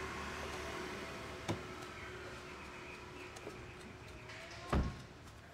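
A sedan's rear passenger door being shut: a light click about a second and a half in, then one solid thump as the door closes near the end, over a low steady background hum.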